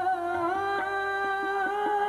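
Qawwali music: a singer holds one long, nearly level note over harmonium accompaniment.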